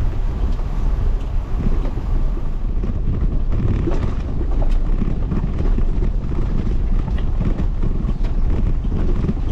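Jeep Gladiator driving slowly over a rough dirt trail: a steady low rumble with wind buffeting the microphone. About three and a half seconds in, frequent small knocks and rattles join it, as stones and ruts jolt the truck.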